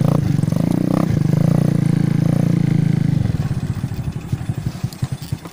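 Motorcycle engine running steadily with a low, even throb, louder for the first three seconds and then easing off as the throttle drops back.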